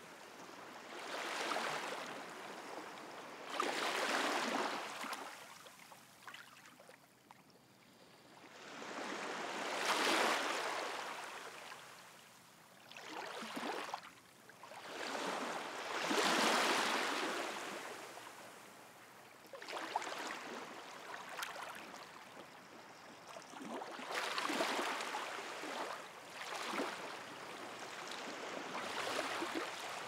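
Small sea waves washing onto the shore: a rush of water that swells and fades every few seconds, with quieter lulls between, the strongest two near the middle.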